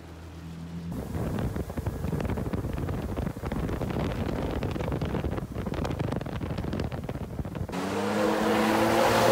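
Water rushing and splashing with wind on the microphone. Near the end a jet ski's engine grows steadily louder as it comes closer.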